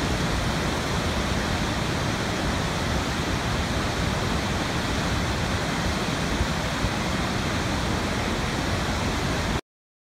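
Large waterfall's rushing water: a steady, dense wash of noise, heavy in the low end, that cuts off suddenly near the end.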